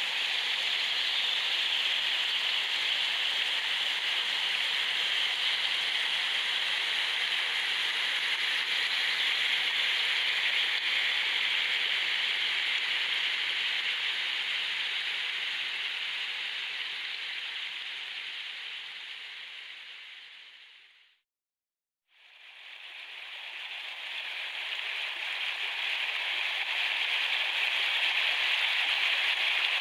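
Steady rushing of a shallow stream running over rocks. It fades out to a second of silence about three-quarters of the way through, then fades back in.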